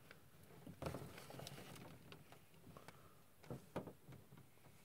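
Near silence with a few faint taps, one about a second in and two close together near the end, from a cardboard toy box being handled.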